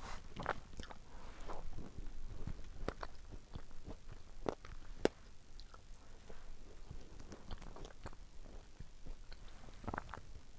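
Close mouth sounds of someone eating fresh strawberries: chewing and biting, with scattered small clicks.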